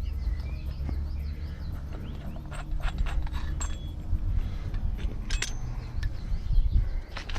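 Scattered light metallic clinks and taps of brake caliper parts and tools being handled, over a steady low rumble.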